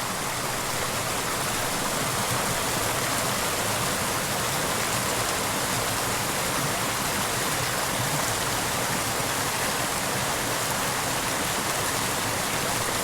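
Small mountain creek pouring into a plunge pool: a steady rush of water.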